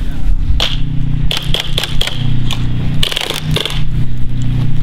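Airsoft guns firing: a string of sharp cracks and short rapid bursts, thickest in the middle, over a steady low rumble.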